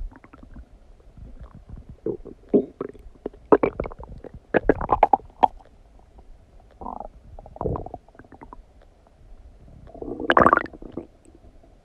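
Human stomach gurgling and rumbling while digesting a recent meal of donuts, in irregular bubbly bursts, with the loudest gurgle about ten seconds in.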